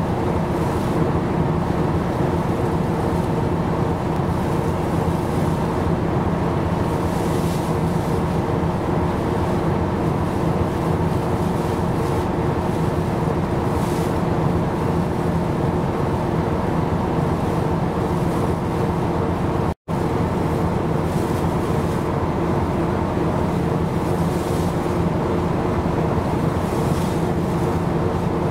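A steady engine drone, an unchanging low hum with a second, higher hum line, over a wash of wind and sea noise. The sound drops out for an instant about two-thirds of the way through.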